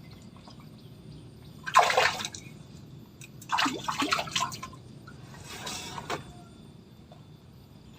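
Water splashing in three short bursts, about two, four and six seconds in, the first the loudest.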